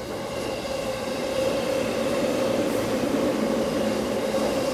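Electric train running along standard-gauge track: a steady running sound with a constant hum, growing a little louder over the first second or so, then holding.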